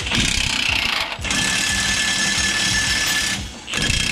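Milwaukee cordless impact wrench hammering the nuts off a truck's leaf-spring U-bolts. It runs in rapid, continuous blows with two short breaks, about a second in and again about three and a half seconds in.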